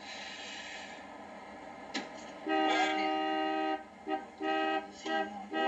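Car horn honking: one long steady blast starting about two and a half seconds in, then a quick run of short honks.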